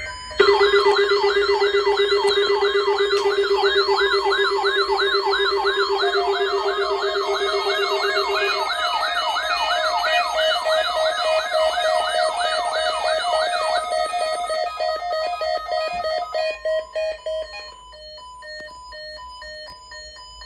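Several electronic alert alarms sounding together, typical of weather alert radios set off by a broadcast alert. A fast warbling siren tone and a steady low tone start about half a second in, layered with interrupted beeping at several pitches. The low tone stops about halfway, the warble stops at about three-quarters, and the beeping carries on louder to near the end before dropping to fainter beeps.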